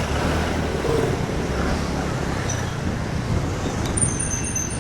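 Royal Enfield Bullet's single-cylinder engine running steadily while the motorcycle is ridden, mixed with road and wind noise.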